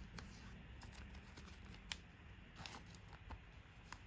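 Magic: The Gathering trading cards being handled and turned over, heard as a few faint, short clicks over near silence, the clearest about two seconds in.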